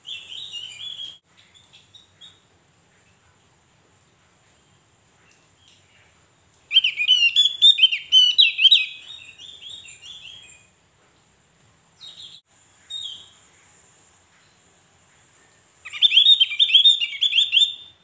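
Javan grey-throated white-eye (opior Jawa) singing in bursts of rapid, high chirping notes: a short phrase at the start, a longer one about seven seconds in, two brief calls after it, and another long phrase near the end.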